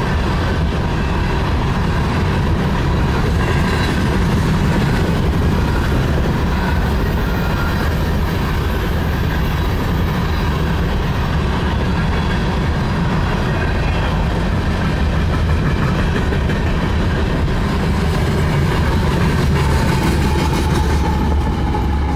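Union Pacific coal train's hopper cars rolling past: a steady, loud rumble and clatter of steel wheels on rail. Near the end a locomotive comes by.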